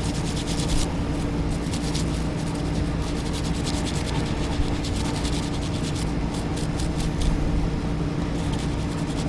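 An old toothbrush scrubbing the plastic body of a Mann's M79 crankbait wet with isopropyl alcohol and distilled water: a steady scratchy brushing made of quick back-and-forth strokes. A steady low hum runs underneath.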